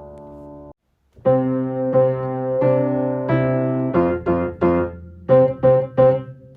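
Simple piano playing: a held chord is cut off just under a second in, then after a short pause a plain melody over single bass notes begins, moving into quicker, short detached notes in its second half.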